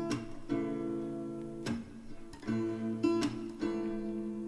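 Background music: strummed acoustic guitar chords, struck every second or so and left to ring.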